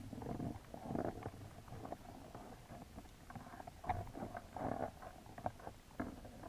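Muffled underwater noise heard through a waterproof camera housing: irregular low rumbling swells of water movement with a few sharp clicks and knocks.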